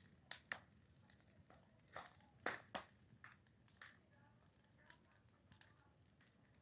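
Freshly lit small bonfire crackling faintly: scattered sharp pops and snaps of burning wood, a few louder ones about two to three seconds in.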